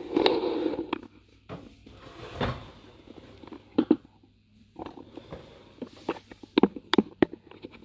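Dishwasher lower rack being pulled out and its dishes handled: a sliding rattle in the first second, then scattered clicks and knocks of crockery and cutlery.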